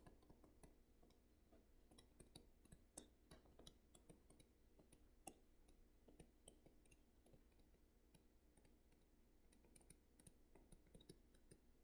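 Near silence broken by faint, irregular clicks and taps of a stylus on a tablet screen during handwriting.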